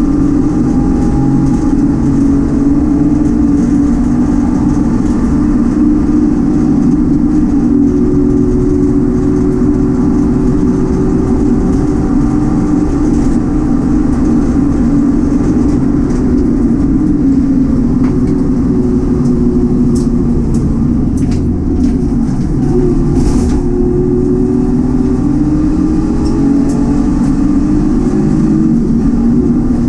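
Citroen C1 race car's engine running hard under racing load, its note steady and drifting gently up and down in pitch with throttle and revs. A few faint clicks come about two-thirds of the way in.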